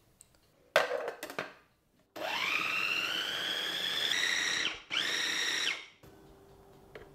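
A few sharp knocks, then a small electric food processor starts with a rising whine and runs for about two and a half seconds, stops briefly, and runs once more for about a second, blending boiled potato and yogurt into a smooth purée.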